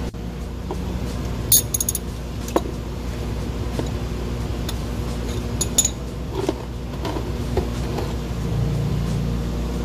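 Socket wrench and extension clinking against the oil drain plug and metal underside of an ATV as the plug is worked loose: a quick cluster of metallic clinks about a second and a half in, another a second later and a pair near six seconds. A steady low hum runs underneath.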